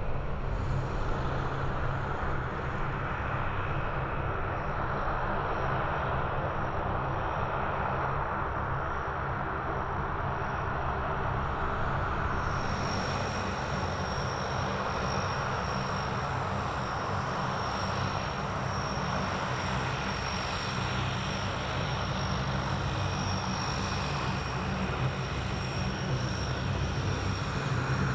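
Boeing 737's jet engines running at taxi power: a steady rumble and roar, with a thin high whine joining about halfway through.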